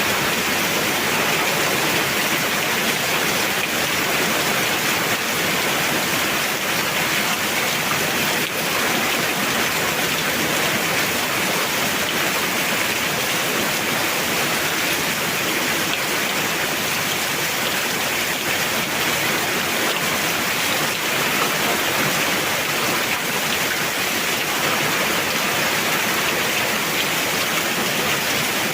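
Heavy rain falling steadily, a dense even hiss with scattered drop impacts.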